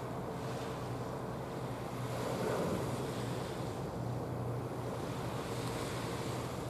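Wind buffeting the microphone over steady sea noise, with a faint steady low hum underneath; the wind swells briefly about two seconds in.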